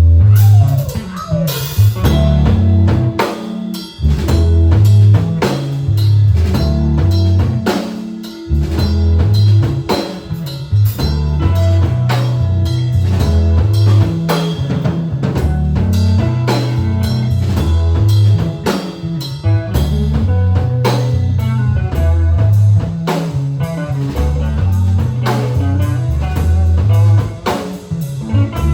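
Live band playing a soul-rock groove: drum kit keeping a steady beat, a bass line and guitar.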